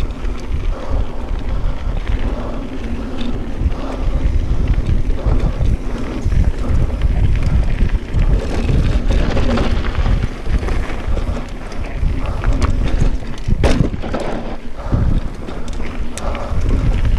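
Wind buffeting the microphone over the rumble and rattle of a Specialized Stumpjumper mountain bike riding a dirt trail, with a sharp clack late on.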